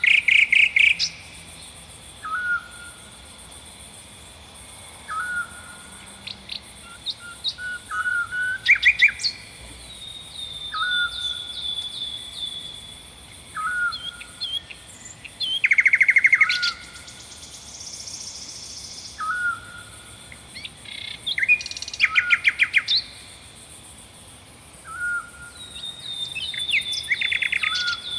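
Several songbirds singing: one bird repeats a short hooked call every two to three seconds while others give loud, fast trills and runs of falling notes, over a faint steady high hiss.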